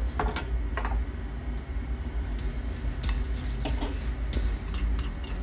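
Irregular clicks and clinks of kitchen utensils against a bowl, over a low steady rumble.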